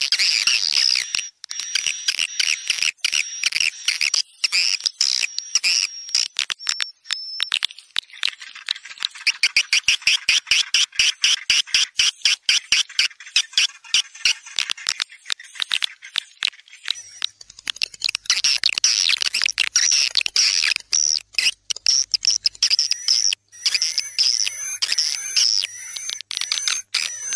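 Swiftlet call recording used as a 'tarik senja' (dusk pull) lure, the kind played from a swiftlet house's tweeters to draw the birds in. It is dense, rapid, high-pitched chirping and clicking with a thin steady high tone running through much of it, and the pattern shifts a few times.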